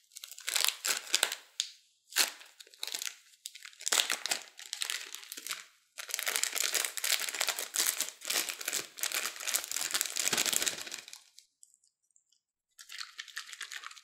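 Thin plastic zip-lock bag crinkling as it is handled, opened and tipped out, in a run of short bursts and then a longer stretch of steady crinkling that stops about eleven seconds in; a short burst of crinkling again near the end.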